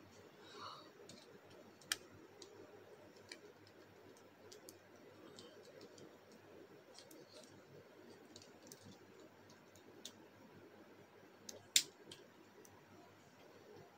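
Plastic Bakugan combiner pieces being handled and snapped together: a sharp click about two seconds in and a louder one near the end, with softer ticks between.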